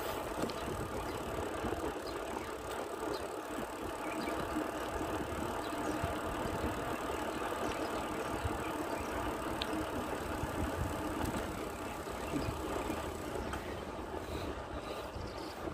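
Steady rolling and wind noise of a bicycle being ridden, with no single sound standing out.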